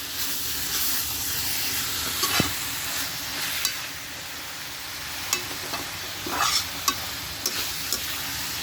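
Chicken gizzards and livers frying in oil in a kadai, with a steady sizzle. A spatula stirs them, scraping and clicking against the pan every second or so.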